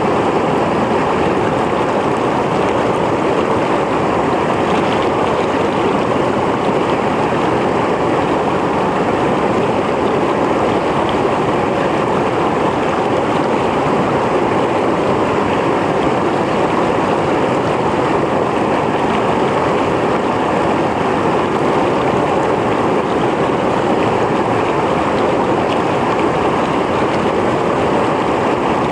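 Mountain stream flowing over rocks, a steady full rush of water with no change in level.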